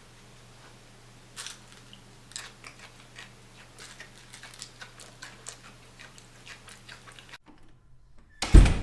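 Irregular crisp crunching clicks, a few each second, over a faint steady hum; the sound cuts out, and near the end comes a sudden loud low burst.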